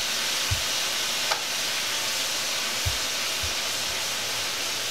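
Bowfin fillets and mushrooms sizzling on a Blackstone flat-top griddle, a steady hiss, with a click and a few soft low thumps.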